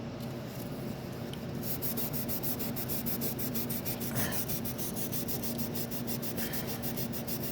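Steel steering shaft being hand-sanded with an abrasive to scour off rust so a new bearing will slide on. Fast back-and-forth scratching strokes, about six a second, start a couple of seconds in.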